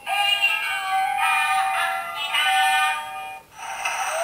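Pororo birthday cake toy playing an electronic song with a synthesized singing voice through its small speaker, thin and without bass. The tune breaks off briefly about three and a half seconds in, then new sound starts.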